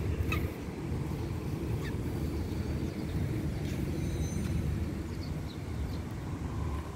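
Steady low rumble of wind buffeting the microphone, with a few faint high chirps and clicks.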